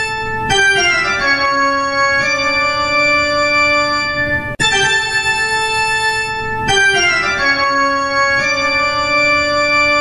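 Organ playing a short Halloween ringtone phrase: a held chord, then a descending run of notes settling onto a sustained chord. The phrase restarts about halfway through after a brief break, looping.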